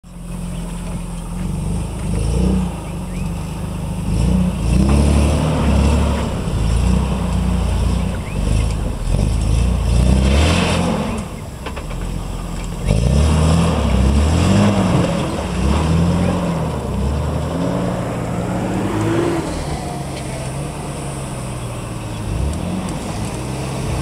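Nissan 4x4 double-cab pickup's engine revving up and down as it drives through a muddy water-filled rut, with a short burst of noise about ten seconds in.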